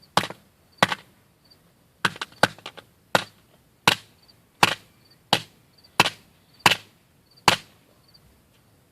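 Hammer striking a smartphone, about a dozen sharp separate blows, settling into a steady pace of a little under one and a half a second from about three seconds in. The phone is holding up under the blows without cracking.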